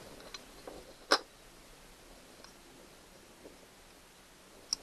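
Small clicks and knocks of metal camper door-lock parts being handled and worked by hand. The sharpest click comes about a second in, and another comes near the end.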